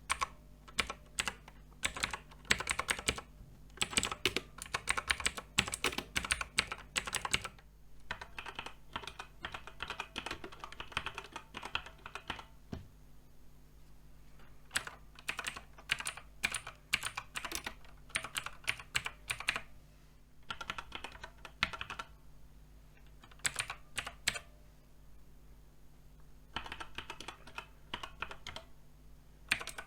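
Typing on a Redragon K568 TKL mechanical keyboard: runs of quick key clicks in bursts of several seconds, separated by short pauses. Some bursts sound sharper and louder than others.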